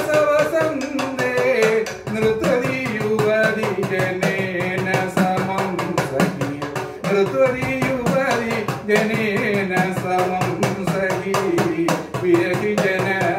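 A man singing Sopana Sangeetham with a gliding, ornamented vocal line, accompanying himself on an idakka, the Kerala hourglass drum struck with a stick. The drum strokes come thick and fast under the voice.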